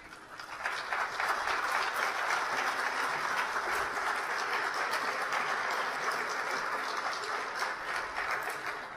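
Audience applauding, swelling over the first second, holding steady, then thinning out near the end.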